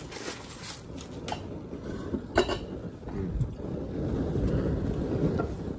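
Forks clinking on plates a couple of times, followed by a low rumble that builds and holds for a couple of seconds near the end.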